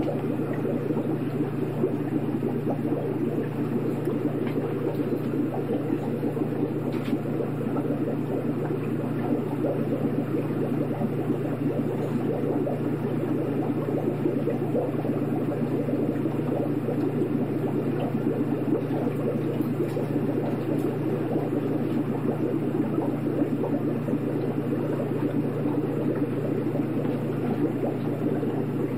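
Aquarium water bubbling steadily over a low, even hum.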